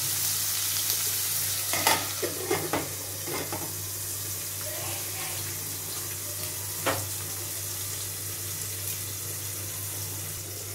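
Sliced onions and green chillies frying in oil in an aluminium pot, a steady sizzle. About two seconds in there are a few metal clinks as a steel plate is set on the pot as a lid, and the sizzle goes on quieter under it.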